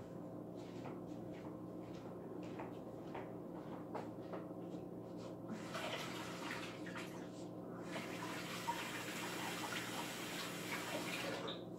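A kitchen tap running into a sink in two spells: briefly about six seconds in, then for about four seconds until it is turned off near the end. A faint steady hum sits underneath.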